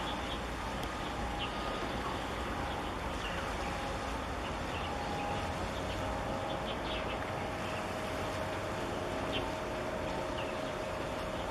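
Steady outdoor background noise with a low rumble and faint steady hums, dotted with brief high chirps of small birds.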